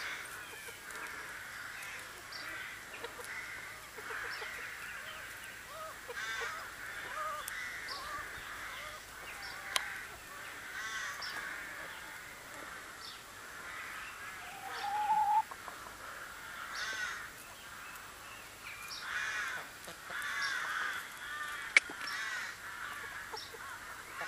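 Free-range hens calling and clucking, short repeated calls throughout, with one longer rising call just past the middle. A single sharp click stands out near the end.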